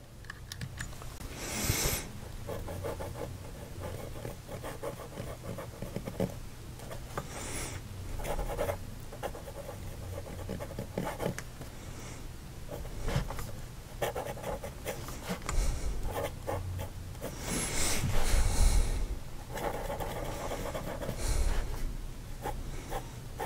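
Fountain pen with a medium nib ground to a cursive italic, writing cursive letters and loops on paper: faint, irregular scratching strokes, with a few louder swishes.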